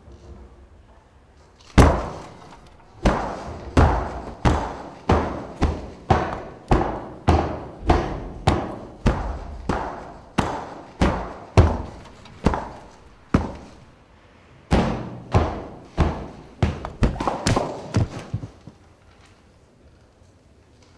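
A steady series of heavy thuds, about three every two seconds, with one short break partway through; they stop a couple of seconds before the end.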